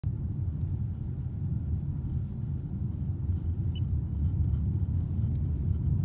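Steady low rumble of road and engine noise inside a moving car's cabin, with a brief high chirp about halfway through.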